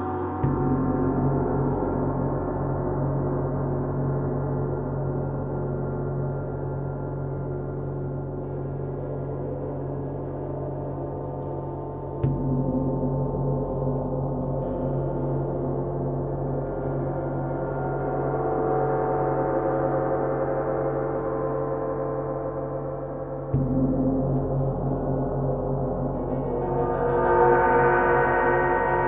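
Several large hanging gongs played with soft mallets, ringing on together in a slow improvisation. Three soft low strokes, roughly eleven seconds apart, renew a deep hum beneath a shimmering cloud of overtones. Near the end a brighter wash of higher overtones swells up.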